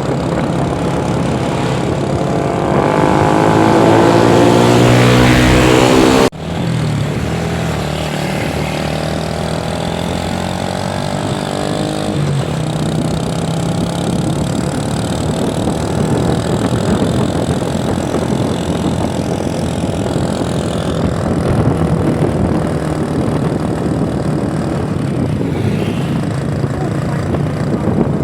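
Bus engine revving up, its pitch rising over a few seconds, then cut off abruptly about six seconds in; steady engine and road noise follows.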